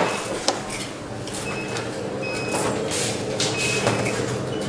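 Busy electronics assembly hall: a steady machine hum with a few short high beeps in the middle and a sharp click about half a second in.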